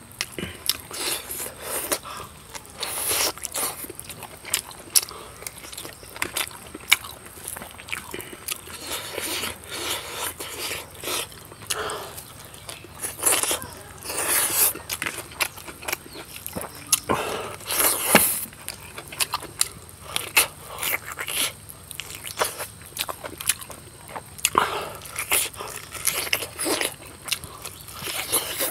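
Close-up chewing and mouth sounds of a person eating rice and bone-in pork by hand: a steady run of irregular smacks and clicks.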